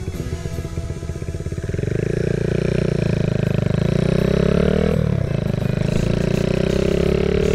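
Honda Monkey 110's single-cylinder engine pulling away under acceleration: the revs climb steadily, fall sharply at a gear change about five seconds in, then climb again in the next gear.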